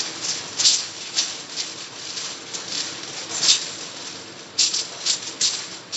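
Aluminium foil crinkling as hands fold and crimp the edges of a foil packet shut, in irregular crisp crackles.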